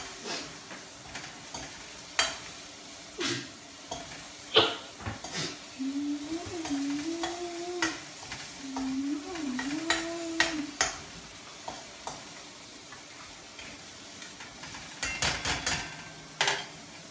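Metal spatula stirring and scraping in a wok-shaped pan of frying onions and spices, with sharp clicks each time it knocks the pan over a frying sizzle. A low wavering hum runs for a few seconds in the middle.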